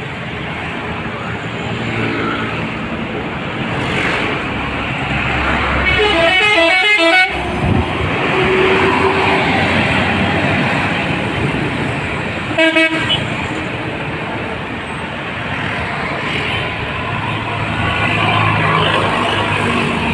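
Intercity bus running, its engine rumbling steadily. Its multi-tone horn sounds twice, playing alternating notes: once for about a second and a half around six seconds in, and briefly again around twelve and a half seconds in.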